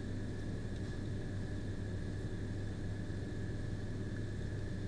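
Steady low hum with hiss and a faint thin high tone, unchanging throughout. No distinct sound of the solder wick or iron can be heard.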